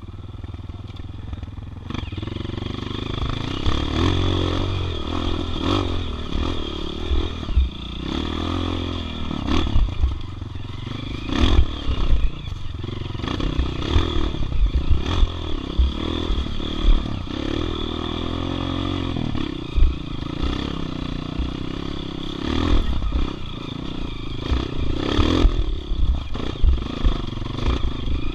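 Dirt bike engine revving up and down under load as it climbs a rough trail, with repeated clattering knocks as the bike is jolted over rocks and ruts.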